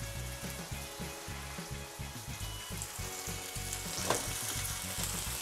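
Cornmeal-coated anchovies frying in a pan with only a little oil: a steady crackling sizzle, with a slightly louder crackle about four seconds in.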